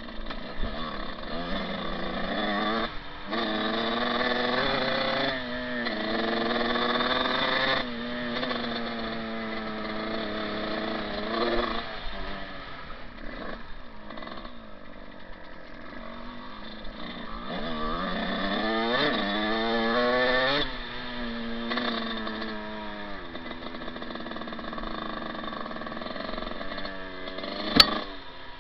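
Dirt bike engine running under way, its pitch climbing and falling several times as the throttle is opened and closed, with a sharp click near the end.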